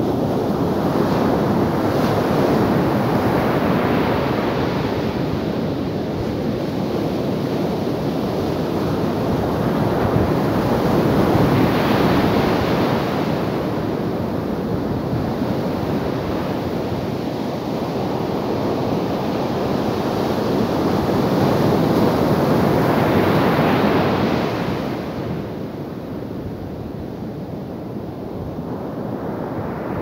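Ocean surf breaking on a sandy beach: a continuous wash of waves that swells with each breaker about every ten seconds, then eases off for the last few seconds.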